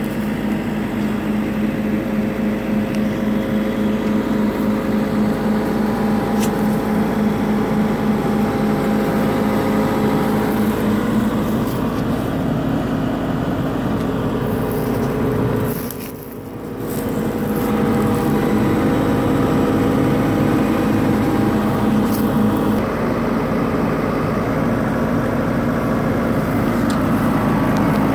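John Deere 75D excavator's diesel engine idling steadily, with a brief dip in loudness about two-thirds of the way through.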